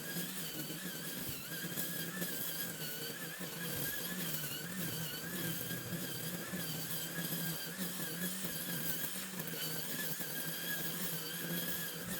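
String trimmer (weed eater) running steadily with a high whine whose pitch wavers slightly.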